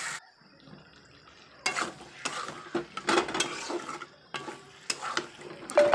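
A spatula scraping and knocking in a kadai, stirring potatoes through a frying spice paste with a light sizzle. The masala is being sautéed until the oil separates. The strokes begin after about a second and a half of near quiet and come irregularly.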